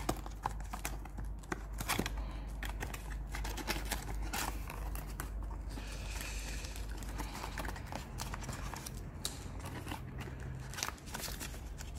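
Paperboard box being opened by hand: flaps and a card insert being pulled back, rustling and scraping with a string of small clicks and taps.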